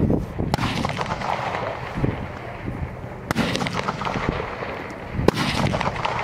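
Target rifles firing on a full-bore range: three sharp shots, about half a second in, about three seconds in and about five seconds in.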